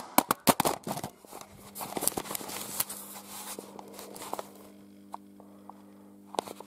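A handheld video camera clattering onto a concrete floor after slipping from oily hands: a quick run of sharp clacks in the first second as it lands and bounces, with its casing knocked partly open. Then rustling and fumbling as it is picked up and handled.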